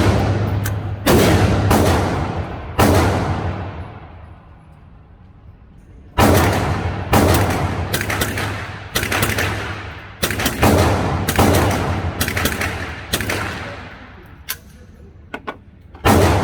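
Rifle shots from an AR-type rifle firing .22LR through a CMMG conversion kit, each shot followed by a long ringing echo. About three shots, a pause of about three seconds, then roughly nine more in uneven succession, with a few faint sharp cracks near the end. A steady low hum runs underneath.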